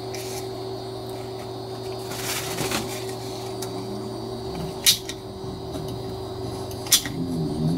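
Manual caulking gun squeezed to lay a bead of caulk along a window frame: a brief rustle of handling about two and a half seconds in, then two sharp clicks from the gun's trigger and ratchet, about two seconds apart, over a steady low hum.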